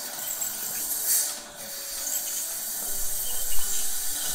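Ultrasonic dental scaler running against teeth to remove stain, its water spray and the dental suction tube making a steady high hiss, with a faint thin whine under it.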